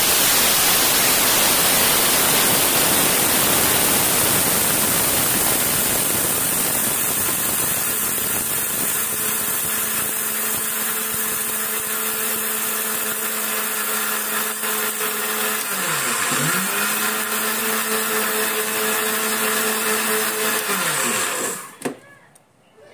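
Electric mixer-grinder running loudly, grinding rice into flour; the pitch dips and recovers once about two-thirds of the way through, then the motor winds down and stops near the end.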